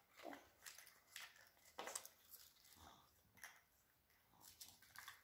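Near silence with a few faint, short clicks and rustles of small plastic toy pieces being handled on a table.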